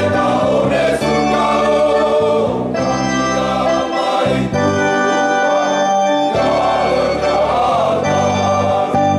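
A church choir singing a hymn in parts, with men's voices, over organ accompaniment. The organ holds low bass chords that change every two seconds or so.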